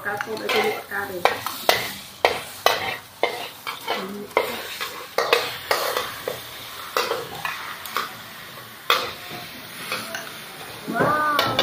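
Food frying and sizzling in oil in a steel wok while a metal spatula stirs and scrapes it, with many irregular clinks of metal on metal.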